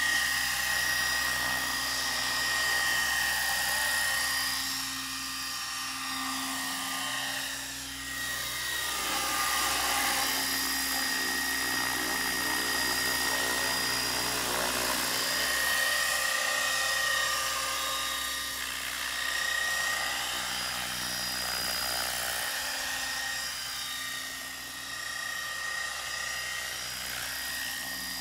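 Gaui Hurricane 425 electric RC helicopter in flight: the high whine of its motor and rotor, its pitch sweeping down and back up several times as the helicopter manoeuvres.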